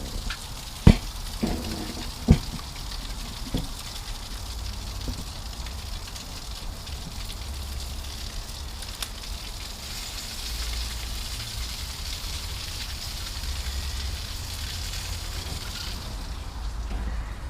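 Oysters in melting butter sizzling on a hot grill, a steady crackling hiss, with two sharp knocks about one and two seconds in.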